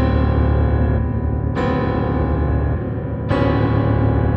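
Slow keyboard music: sustained chords, a new one struck about every second and a half, over a steady low hum.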